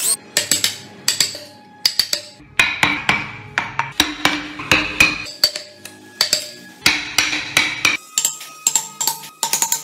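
Hammer striking a wood chisel to chop out a mortise in a wooden block: irregular sharp knocks, two or three a second, many with a short ring after them.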